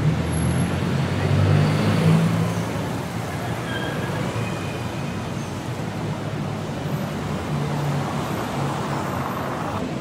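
City street traffic: a motor vehicle's engine passes close and loud in the first couple of seconds, over a steady wash of road traffic noise, with another engine swelling briefly near the end.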